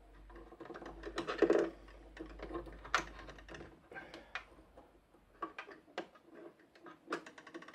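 Fingers handling thread and a plastic bobbin on a sewing machine's bobbin winder: a run of small, irregular clicks and taps with light rustling, busiest about a second and a half in.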